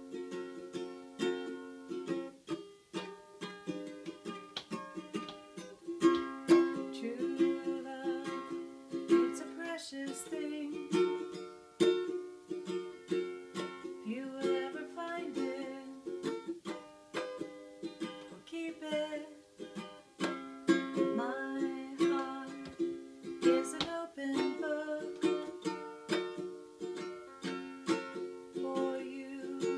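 Ukulele strummed in a steady rhythm, playing the chords of the song's instrumental introduction.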